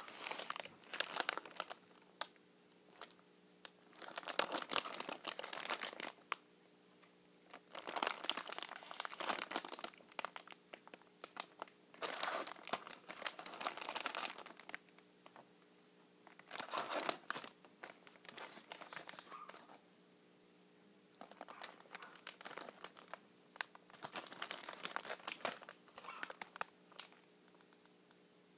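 Packaging being crinkled and torn by hand, in irregular bursts of one to three seconds with short pauses between them, over a faint steady electrical hum.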